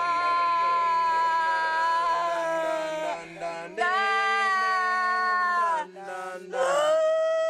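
A voice singing long, held chant notes in three phrases, each note bending down in pitch at its end, with short breaks between, over a steady lower drone.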